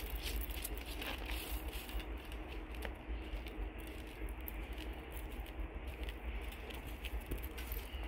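A hand scraping and brushing over gravel and dry soil: soft crackling and rustling, over a steady low rumble.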